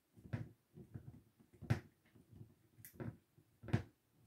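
Hard plastic and metal parts of a ring light stand knocking and clicking as they are handled and fitted together: a run of sharp knocks among lighter taps.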